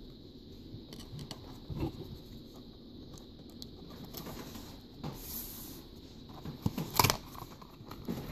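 Faint handling of cardboard packaging as an insert is lifted out of a box: soft rustling with a few light taps and knocks. The sharpest tap comes about seven seconds in.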